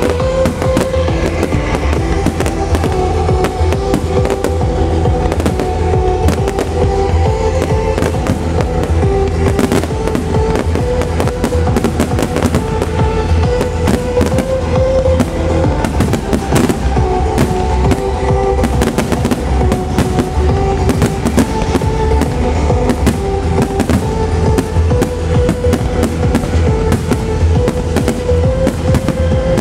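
Aerial firework shells bursting in quick succession over loud trance music played through the show's sound system, the melody and heavy bass running under the bangs.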